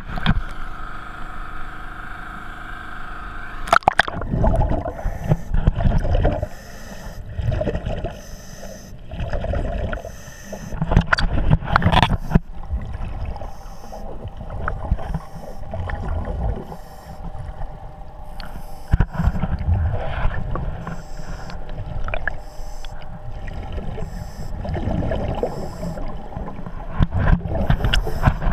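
Underwater: a diver's exhaled air bubbling out of a full-face mask in loud, low, rushing bursts every few seconds, following the breathing. In the first few seconds, before the splash of going under, a steady machine hum comes from the boat at the surface.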